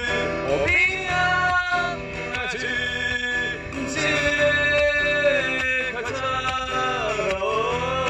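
A man singing with his own acoustic guitar accompaniment. The sung notes are held and glide between pitches, over strummed chords.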